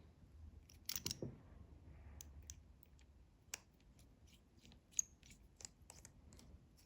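Small sharp clicks and taps from handling an iPhone and small repair parts, with a cluster of louder clicks about a second in, then scattered single clicks.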